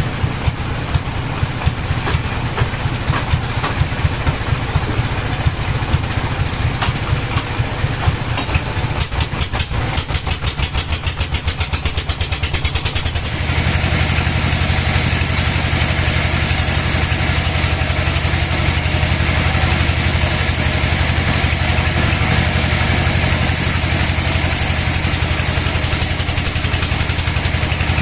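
Engine of a band sawmill running with a regular pulsing beat. About halfway through it turns suddenly louder and fuller, then runs steadily.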